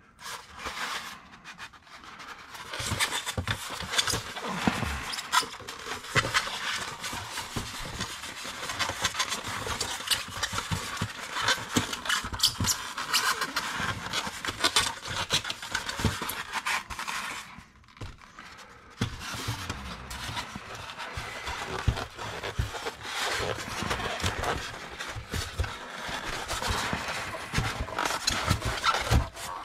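Styrofoam packaging rubbing, squeaking and scraping as the foam trays are pressed together and pulled apart around a boxed die-cast truck, with a short break about eighteen seconds in.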